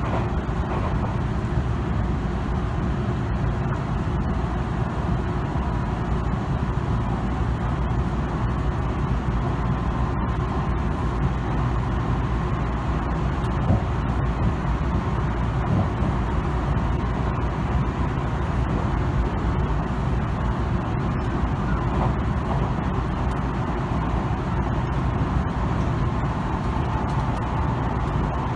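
Steady running noise of a Tobu Tojo Line Kawagoe Limited Express electric train at speed, heard from inside the car: a continuous low rumble of wheels on the rails.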